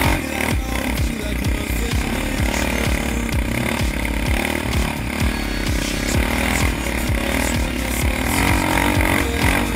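Yamaha Raptor 700 ATV's single-cylinder four-stroke engine running under throttle, revs rising and falling as it is ridden.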